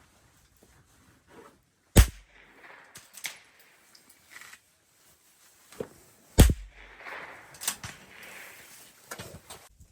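.22 LR rifle fired twice, about four and a half seconds apart, each a sharp crack, with fainter clicks and knocks between the shots.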